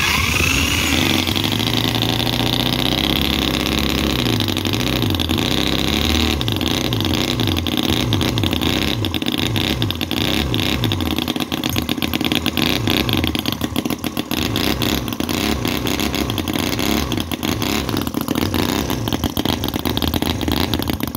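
Microcosm R28 model gasoline engine, a 4.3 cc 45-degree V-twin four-stroke, spun up by an electric drill on its flywheel in the first second and then running on its own. Its speed rises and falls over and over as the spring-return throttle is pulled up and let go.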